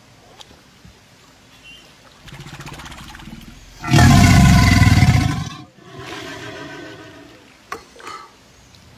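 A large crocodilian growling with its throat swelling. A low pulsing growl comes a couple of seconds in, then a loud, deep roaring growl about a second and a half long, then a quieter pulsing growl after it.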